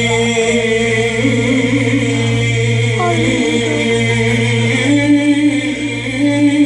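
Live Arabic vocal music: a voice holds long notes, sliding between pitches about three seconds in, over a steady sustained drone from the backing music.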